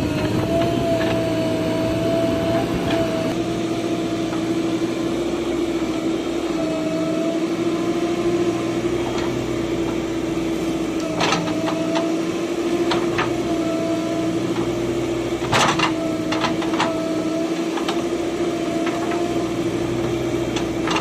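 Bulldozer's diesel engine running at a steady drone, with a few sharp metallic knocks about halfway through.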